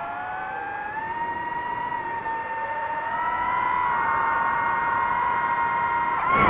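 DJI FPV drone's motors and propellers whining as several close pitches together. The pitch rises about a second in and again around three seconds, then dips and wavers sharply near the end.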